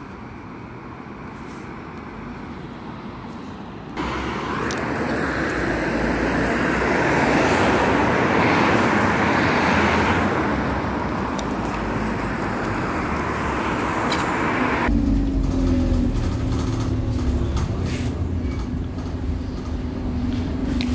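Road traffic on a wet road, then a Scania double-decker bus coming up loudly about four seconds in. About fifteen seconds in, heard from inside the bus, its engine runs with a low rumble and a steady held note above it: the very weird engine sound of a bus in a sorry state.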